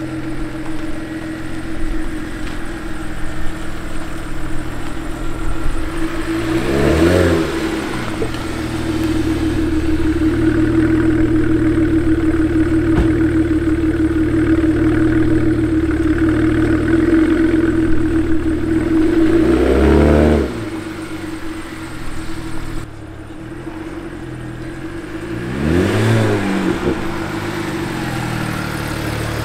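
BMW 335i's N54 twin-turbo straight-six running steadily, revving up and back down three times: once early, once about two-thirds through and once near the end.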